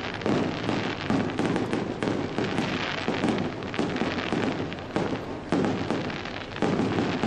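Fireworks display: a dense, continuous run of crackling pops with louder bangs every second or so.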